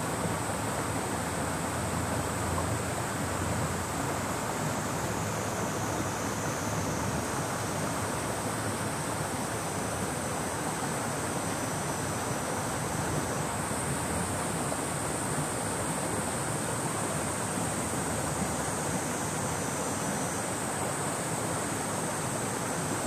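Hozu River flowing: a steady, even rush of water. Cicadas drone in a high, unbroken band over it. A second, slightly lower drone joins from about five to thirteen seconds in and again briefly near twenty seconds.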